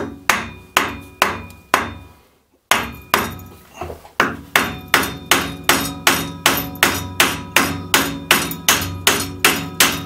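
Hammer driving the spindle out of a Killinger KM 1500 SE lathe headstock, striking a hardwood block held against the spindle end. The blows come steadily, about two and a half a second, with one short pause about two seconds in, and each leaves a brief ring.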